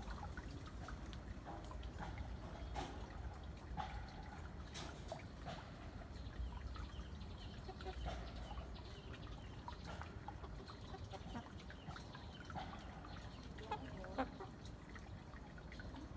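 Domestic chickens, a rooster and a hen, giving short, scattered clucks while they forage on the ground, with a few brief clicks among them.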